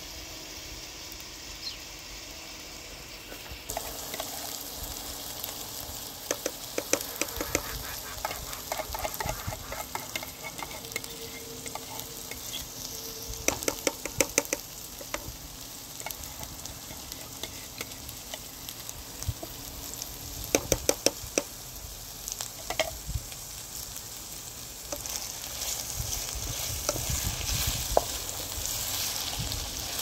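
Food sizzling in a frying pan, starting about four seconds in, with a wooden spatula stirring and scraping against the pan in several short spells of clicks. The sizzle grows louder near the end.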